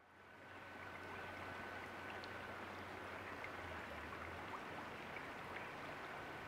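Shallow creek water flowing over rocks: a faint, steady babble that fades in over the first second.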